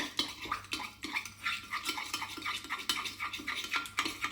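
Salad dressing of whole grain mustard, olive oil and citrus juice being stirred briskly in a small bowl, the utensil clinking against the bowl about four times a second.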